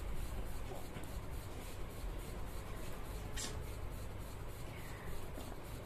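Faint rubbing and handling noise over a low steady hum, with a brief hiss about three and a half seconds in.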